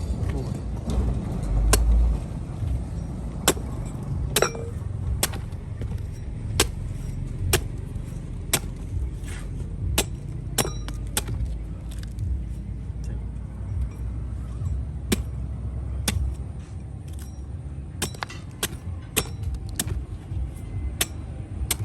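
A string of sharp knocks and taps at irregular intervals, roughly one a second, over a low steady rumble.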